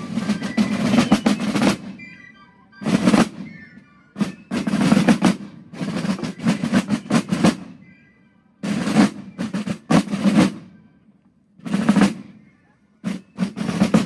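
Basel drums played by a group of drummers: rolls and beats in short phrases of a second or two, separated by brief pauses.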